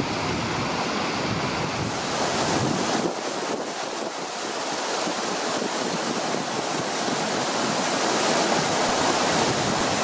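Steady rushing of a rocky river pouring over small falls and cascades. Low wind rumble on the microphone underlies it for the first three seconds or so, then drops away.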